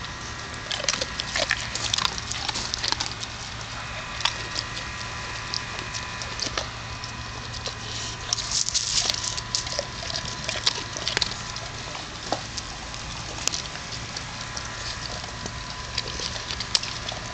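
A Neapolitan Mastiff crunching hard dog biscuits taken from a hand, in irregular clusters of sharp crunches and clicks. A faint steady hum runs underneath.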